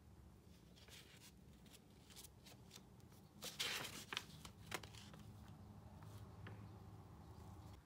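Paper pages of a spiral-bound sketchbook rustling as they are handled and turned: a few soft rustles, then a louder flurry of rustling and small ticks a little before halfway, over a faint low hum.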